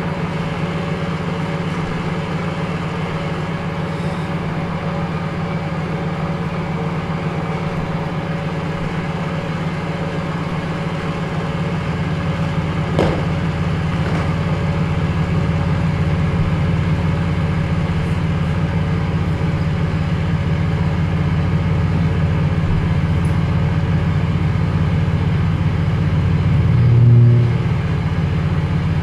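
A steady low hum, with a single click about halfway through and a brief, louder low tone near the end.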